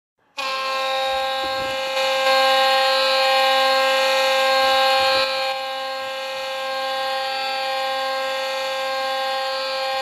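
The South Carolina Stingrays' hockey goal horn sounding one long, unbroken blast on a single steady pitch. It starts abruptly and is a little louder between about two and five seconds in.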